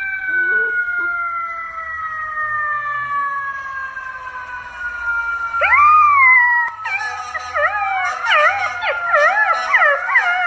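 Golden retriever puppy howling: one long drawn-out howl that slowly falls in pitch, a short rising-and-falling cry about six seconds in, then a run of quick wavering howls near the end.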